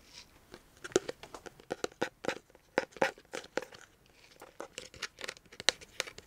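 A clear plastic screw-top jar handled close up: a quick irregular string of plastic crinkles and crackling clicks as it is gripped and turned in the hands.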